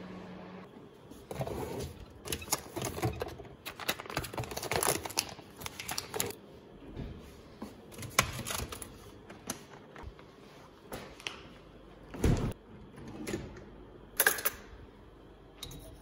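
Kitchen handling sounds: a run of clicks, knocks and rustles as things are picked up and set down, with two louder knocks near the end, the first heavier and deeper.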